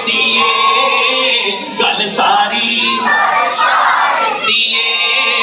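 Congregation of men and boys singing a devotional chant together in unison.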